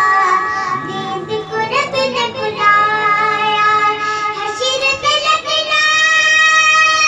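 A young boy singing an Urdu naat into a microphone, with ornamented, wavering phrases that settle into long drawn-out held notes.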